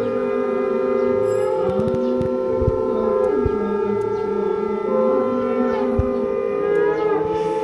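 Several conch shells (shankh) blown together, long steady overlapping notes at different pitches, sounded in welcome.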